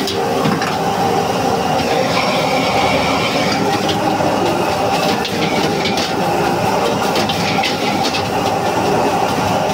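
High-flame gas wok burner running steadily under a wok while a metal ladle scrapes and clanks against it and fried rice sizzles as it is stir-fried and tossed.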